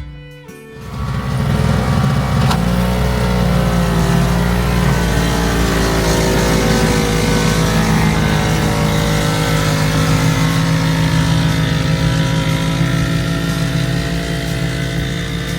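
An engine comes in about a second in and runs loudly and steadily, its pitch wavering slightly, easing off a little near the end.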